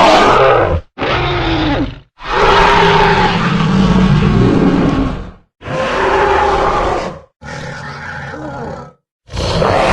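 Spinosaurus roar sound effects: about five deep, growling dinosaur roars played one after another with short silent gaps between them. The longest roar, about three seconds, comes in the middle, and a quieter one comes near the end.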